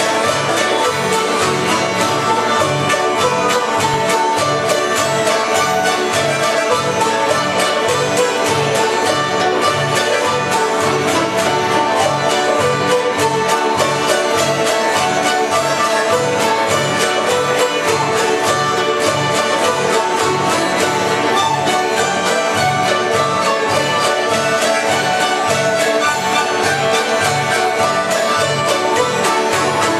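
Bluegrass music with fiddle, banjo and guitar over a steady beat.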